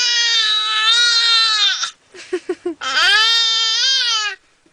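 A baby making loud, drawn-out high-pitched wails: two long held cries, each falling off at the end, with a few short quick sounds between them.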